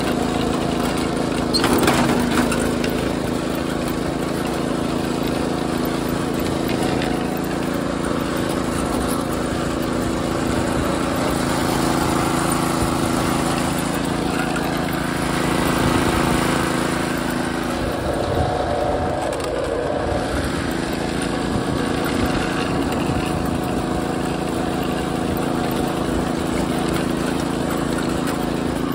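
Harbor Freight Predator 212 single-cylinder engine running steadily under load as a 1989 Wheel Horse garden tractor drives along. There is a brief knock about two seconds in.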